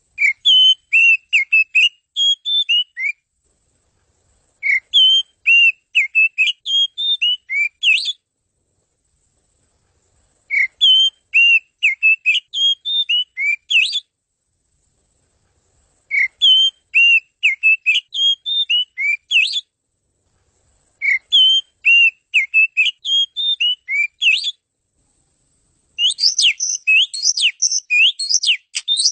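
Oriental magpie-robin (kacer) singing in repeated phrases of clear whistled notes, each phrase about three seconds long with short silent pauses between. The last phrase, near the end, is faster and fuller, with quick sweeping notes.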